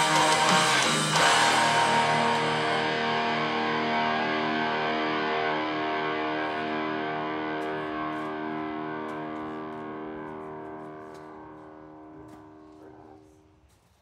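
Background music ending on a guitar chord, struck about a second in, that rings out and slowly fades away to nothing near the end.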